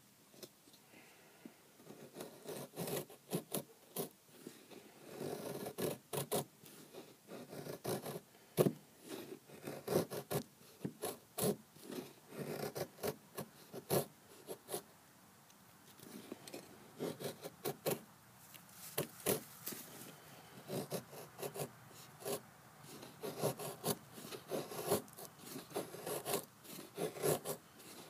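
A knife blade shaving long curls down a split stick of dry wood, carving a feather stick: a run of short scraping strokes, with a brief pause about halfway through.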